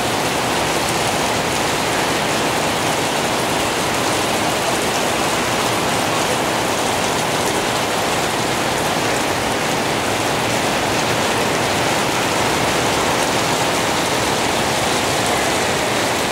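Heavy rain falling steadily on garden plants, pots and wet paving: an even, unbroken hiss.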